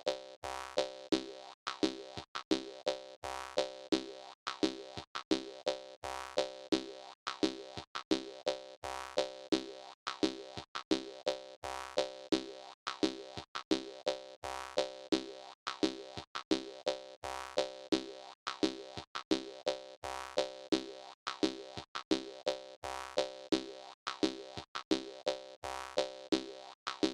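Jaw harp music: a steady, repeating rhythm of twanging plucked notes.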